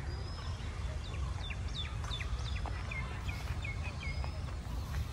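A bird calling: a quick run of short chirps, each falling in pitch, about eight of them over two or three seconds, over a steady low background rumble.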